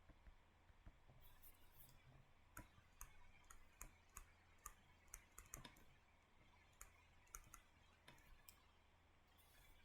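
Near silence with faint, irregular clicks and taps, unevenly spaced, over a low steady hum.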